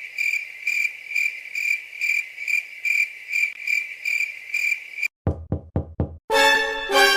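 Crickets-chirping comedy sound effect: a steady high chirp pulsing about twice a second. It cuts off about five seconds in, followed by four quick knocks, then music starts near the end.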